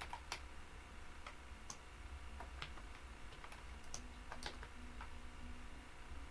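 Computer keyboard being typed: scattered, irregularly spaced key clicks over a steady low hum.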